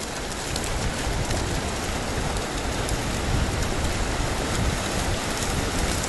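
Ocean surf: a steady hiss of waves breaking and washing on the shore, with an uneven low rumble underneath.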